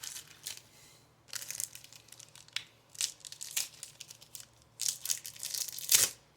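Foil trading-card pack wrapper crinkling and tearing in bouts as a pack of baseball cards is opened, loudest about six seconds in.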